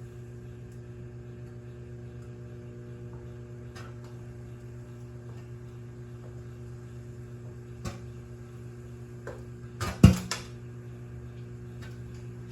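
Microwave oven running with a steady hum while an egg heats inside. Faint clicks come a few times, then a loud cluster of sharp pops about ten seconds in.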